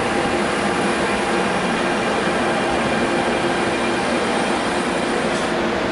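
Adtranz-CAF A-Stock electric multiple unit train pulling into a station past the platform, a steady rumble of wheels on rail with a few steady tones from the train's motors and equipment above it.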